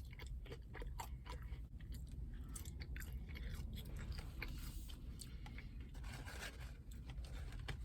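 A person chewing food, with a steady run of small crunching clicks.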